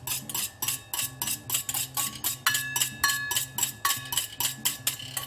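A utensil scraping and tapping the inside of a metal mixing bowl to empty out the last of the beaten eggs, rapid clinks about five a second, some with a short metallic ring. Soft background music with a stepping bass line plays underneath.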